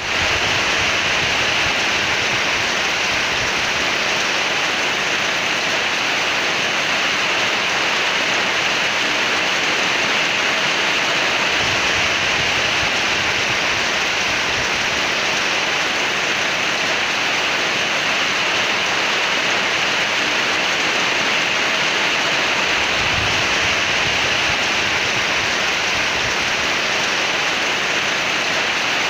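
Rain falling on tree leaves, a steady, even hiss that does not let up.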